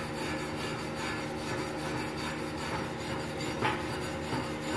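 Steel wire brush scrubbing back and forth over fresh MIG weld beads on a steel plate, a rasping scrape in repeated strokes, cleaning the welds.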